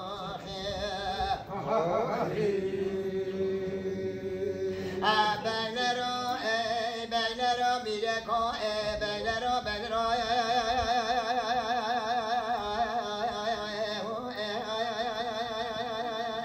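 Kurdish dengbêj singing: a solo voice chanting with heavy vibrato and ornamented runs. It slides into one long held note about two seconds in, then goes on in wavering, melismatic phrases.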